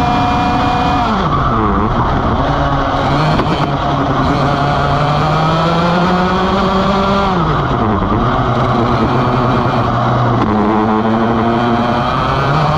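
Vortex ROK GP kart's 125cc two-stroke engine heard onboard, running hard on the throttle. Its pitch drops steeply as the driver lifts off for a corner about a second in, climbs slowly back, drops again about seven seconds in, then rises again as the kart pulls out of the corner.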